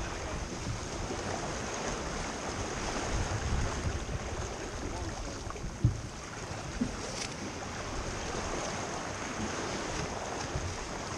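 A sailboat under way: water rushing and splashing along the hull with wind buffeting the microphone in a steady rush. A single sharp knock comes about six seconds in.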